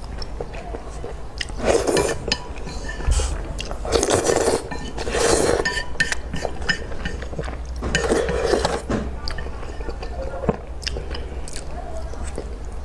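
A person eating noodles close to the microphone: chewing and wet mouth sounds with small clicks, and several louder noisy bursts about two, four, five and eight seconds in.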